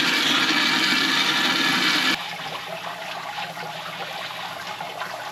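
Water running hard into a kitchen sink, cut back about two seconds in to a quieter steady flow, as the blanched corn is taken to cold water.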